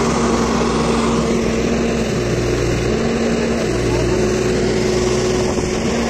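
Diesel engine of a Case 770EX backhoe loader running under load while the machine works to free a water tanker stuck in mud, its engine note shifting up and down a few times. Other heavy engines run alongside it.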